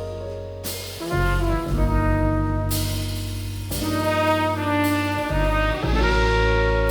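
Jazz band instrumental break: trumpet and saxophone holding horn lines over walking double bass, piano and drums, with several cymbal hits.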